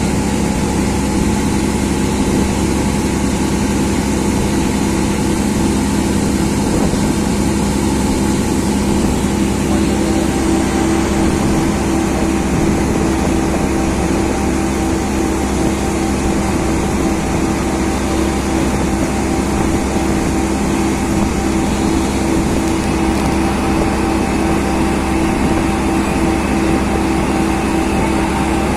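Engine of a passenger lake boat running steadily under way: a constant drone with an evenly pulsing hum.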